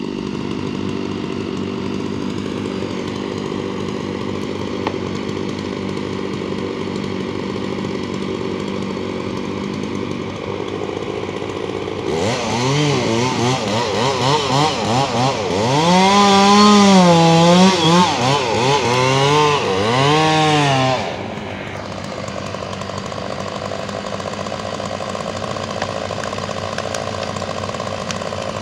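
Chainsaw engine running steadily at idle, then revved hard from about twelve seconds in, its pitch rising and falling over and over for about nine seconds before dropping back to idle.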